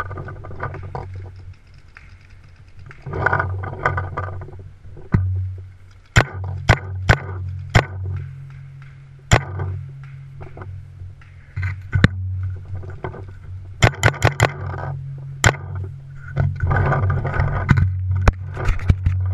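Paintball markers firing: sharp pops, some single and some in quick runs of three or four, over a steady low rumble.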